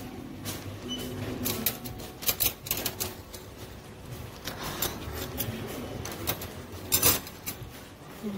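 Irregular clinks and clatter of metal cutlery and dishes, with the loudest clatter about seven seconds in.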